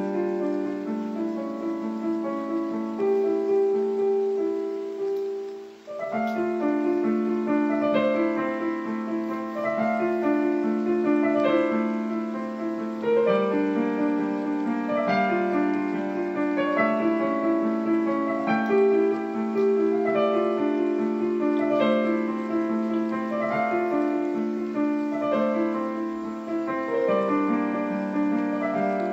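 Solo piano played on a digital keyboard: a slow piece of overlapping held notes, mostly in the middle register. The sound dies away about six seconds in, then the playing resumes.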